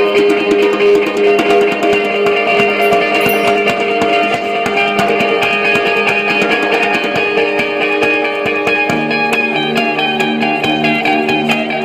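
A guitar playing chords and riffs while a djembe is hand-drummed in a steady, busy rhythm. Lower guitar notes come in about nine seconds in.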